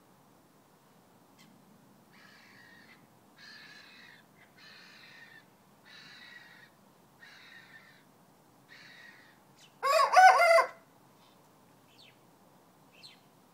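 A rooster crows once, loudly and briefly, about ten seconds in. Before it come a run of faint, short rasping sounds about once a second.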